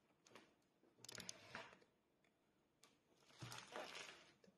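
Faint rustling and crinkling of packaging being handled as a bag is unwrapped, in two short bursts with a few small clicks.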